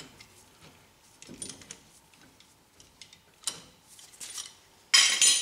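Steel C-clamp being unscrewed and lifted off a rear brake caliper: scattered small metallic clicks and scrapes, then a louder metal clank near the end.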